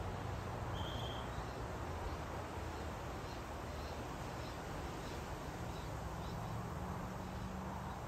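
Steady outdoor garden background noise, with one short high whistle about a second in and then a run of faint, short high chirps.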